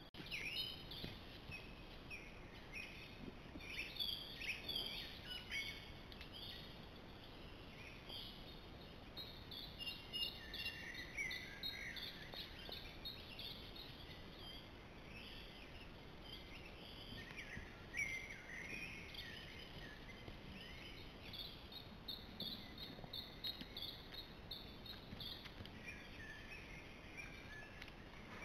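Songbirds singing in woodland: many short chirps and warbled phrases overlapping, over a faint steady hiss.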